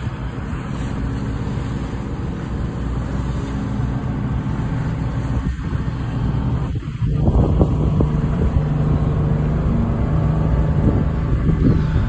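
Tour boat's engine running with a steady low rumble, getting louder about seven seconds in.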